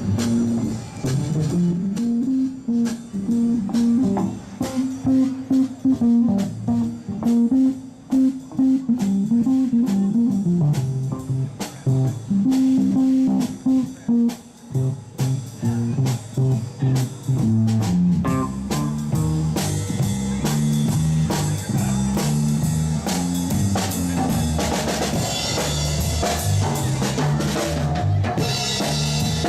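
Live band playing an instrumental passage with guitar, bass guitar and drum kit, the bass line moving steadily under regular drum hits. The cymbals get louder and brighter in the last few seconds.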